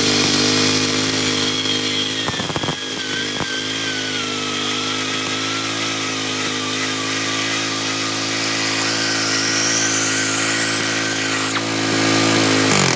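DuroMax 18 hp single-cylinder engine running steadily while a cut-off wheel grinds through the end of its spinning crankshaft, the wheel's high whine over the engine note. Near the end the whine rises and stops as the wheel comes off, and the engine then begins to wind down.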